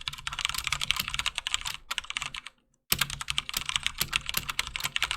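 Fast typing on a HyperX Alloy FPS Pro mechanical keyboard with linear Cherry MX Red switches: a dense run of key strikes. The typing stops briefly about halfway through, then starts again abruptly.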